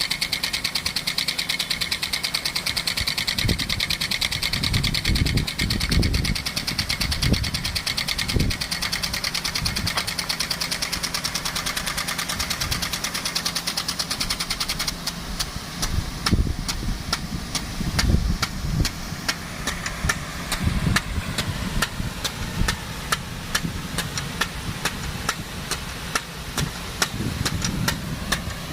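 Engine of a water pump running steadily under load, feeding a DN-50 big gun irrigation sprinkler, with the hiss of the water jet. The hiss eases about halfway through, and irregular low rumbles come and go throughout.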